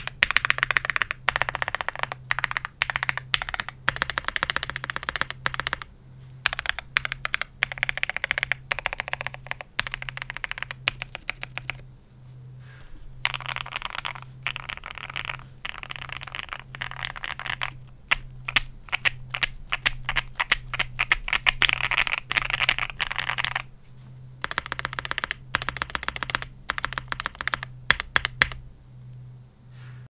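Typing on a QK75 mechanical keyboard with lubed and filmed Gateron Oil King linear switches, a POM plate and TMT Taho PBT keycaps: fast runs of keystrokes broken by brief pauses, stopping shortly before the end.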